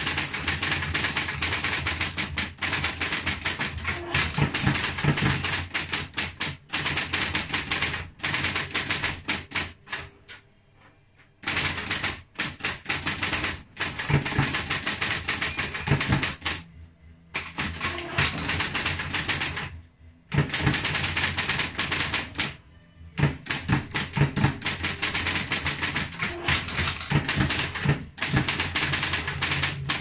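Triumph Electric 31 electric typewriter from 1963 being typed on quickly: a rapid run of key and typebar strikes over the steady low hum of its running motor, broken by a few short pauses, the longest about a third of the way in.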